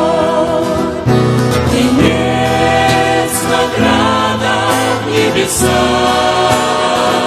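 Background music: a Christian choral song, a choir holding chords over instrumental accompaniment, the chords changing every second or two.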